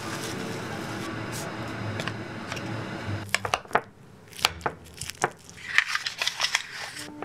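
Home kitchen sounds: a steady rushing hiss for about three seconds, then a run of irregular sharp knocks and clicks of kitchen utensils.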